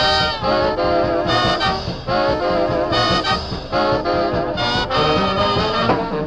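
Upbeat swing-style music with brass.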